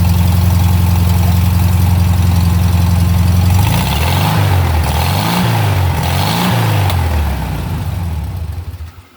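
Rebuilt 1641cc Volkswagen air-cooled flat-four running on a new Solex H30/31 PICT carburetor, idling steadily, then revved up and down three times before the sound dies away near the end.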